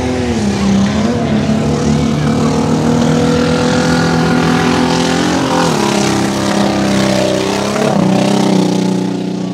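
Jeep Cherokee tough truck's engine running under throttle on a dirt race course. It holds a steady note, then the pitch drops twice, about five and a half seconds in and again near eight seconds.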